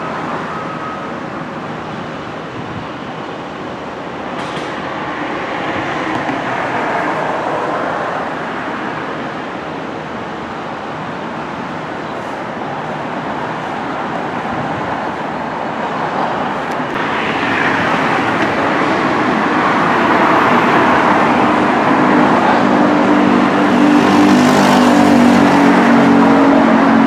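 Steady vehicle running noise, a continuous rush that grows louder in the second half, with a low steady drone coming in near the end.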